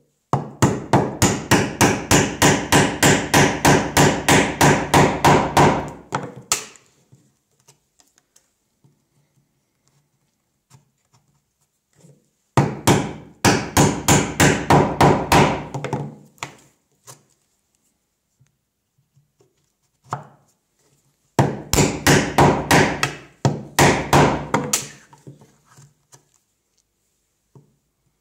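A chisel being driven into white oak by rapid blows, about four a second, in three runs of several seconds each: chopping a 3/4-inch mortise. The blows soften toward the end of each run, and a few faint ticks fall in the pauses between.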